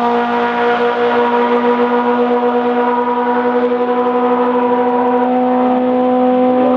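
Historic racing car engine running at steady revs, holding one constant pitch without rising or falling.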